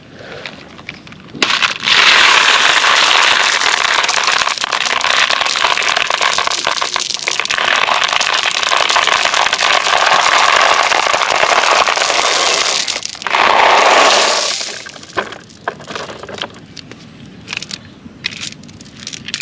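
A load of marbles poured out of a toy truck, a dense clattering rush lasting about eleven seconds. A second short pour follows, then scattered clicks as the last marbles roll and settle.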